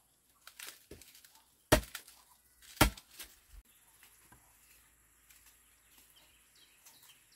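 A few sharp, short knocks, loudest twice about two and three seconds in, then faint high bird chirps.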